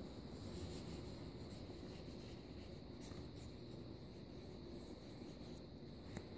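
Faint steady background noise with a thin, high, unbroken tone and a soft click near the end.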